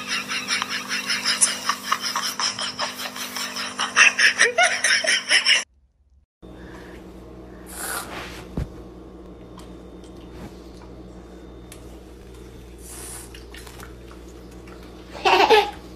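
A person laughing in quick repeated bursts for about five and a half seconds, then it cuts off. After a quieter stretch with a couple of short hissing bursts, there is a short loud cry falling in pitch near the end.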